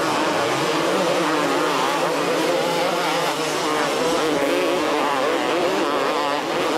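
Several two-stroke supercross motorcycles racing, their engines revving up and down together in a wavering, overlapping whine.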